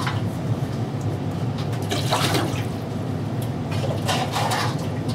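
Water sloshing and splashing as a bucket is dipped into a sump pit to bail it out, in bursts about every two seconds.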